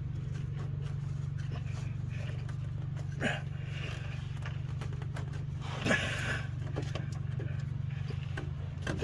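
A few short metal clanks of tools working on a truck's coolant filter, the loudest a little past the middle, over a steady low machine hum.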